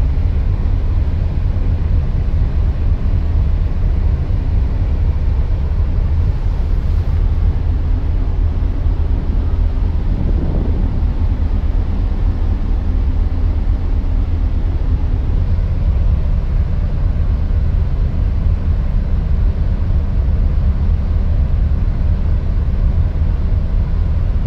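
A ferry's engines running with a steady, deep rumble and a faint low hum, heard from the open deck.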